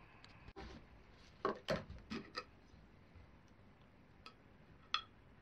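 Faint handling noises: a few knocks and clunks about one and a half to two and a half seconds in, then a sharp clink of the glass tobacco jar with a brief ring near the end.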